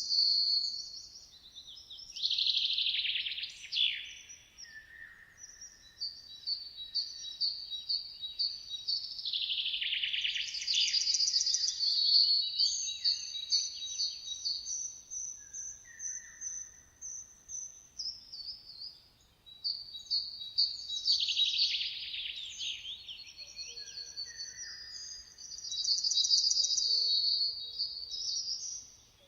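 Songbirds singing in a chorus. Their phrases overlap: high, fast series of repeated notes and trills, with louder bursts of dense song every several seconds.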